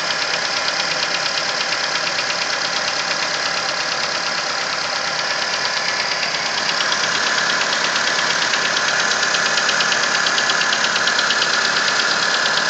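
Nissan Versa engine running cold with a rapid, even tapping knock, which the owner traces to the area of cylinder number 3. The noise fades once the engine warms up. The engine grows a little louder about halfway through.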